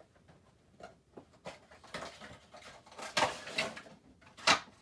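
A Funko Pop cardboard window box and its plastic insert being handled as the vinyl figure is taken out: scattered rustles and scrapes, busiest in the second half, with one sharp crack near the end.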